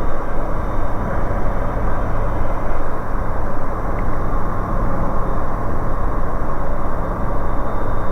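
Steady drone of a Bristell light aircraft's piston engine and propeller, with airflow noise, heard inside the cabin during descent.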